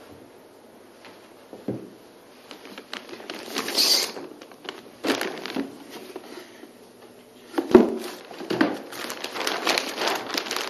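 Rustling and crinkling of cardboard and plastic packaging as a box is opened and bags of items are handled on a desk, in irregular bursts with small clicks and a sharp knock about three quarters of the way in.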